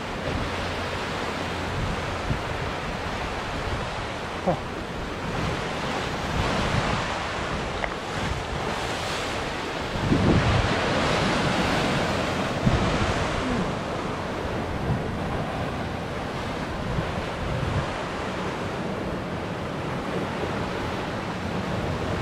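Ocean swell surging and breaking against a rock ledge in a steady wash of surf, with wind buffeting the microphone. A bigger wave crashes in about ten seconds in.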